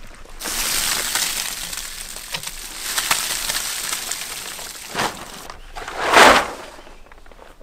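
Plastic tarp crinkling and rustling as it is pulled and handled, with a sharp knock about five seconds in and a louder rush of noise a second later.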